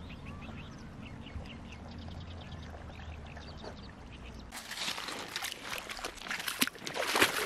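Small birds chirping in quick short notes over a low rumble; then, about halfway through, water splashing and sloshing as someone wades into a shallow rocky stream.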